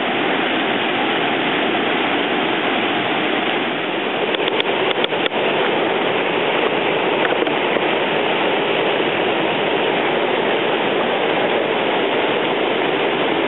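Steady rush of fast-flowing floodwater in a swollen creek, with heavy rain falling. A few sharp clicks come about four to five seconds in.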